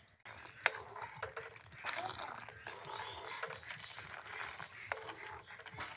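Milk simmering and frothing in an aluminium pan as it is boiled down to thicken it. A steel ladle scoops it up and pours it back in a stream, with a few sharp clinks of the ladle on the pan.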